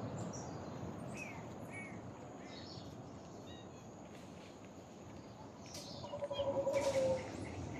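Outdoor background noise with scattered short bird chirps, and a louder, rapidly pulsing call lasting about a second near the end.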